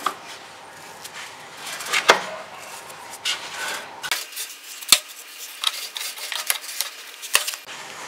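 Toothbrush scrubbing the dust-caked condenser coil of a GE side-by-side refrigerator: irregular scratching of bristles against the metal coil grid, knocking loose built-up dust. Several sharper clicks stand out, the sharpest about five seconds in.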